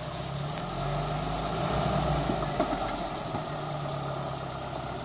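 Engine of a lifted compact 4x4 SUV running at low revs as it crawls down over rocks, swelling slightly about a second and a half in. A few faint knocks come over it.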